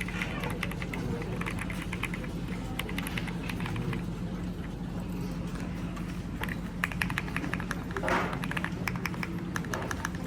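Typing on a Zuoya GMK70 split mechanical keyboard with Akko Lavender Purple tactile switches: quick, uneven runs of key clicks, with a slightly louder, longer keystroke about eight seconds in, over a steady low hum.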